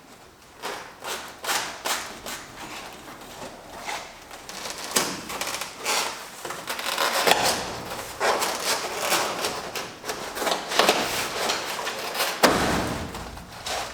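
Rigid EPS foam insulation panels being worked into a garage door: irregular rubbing and scraping strokes of foam against the metal door panel, with a heavier thump near the end.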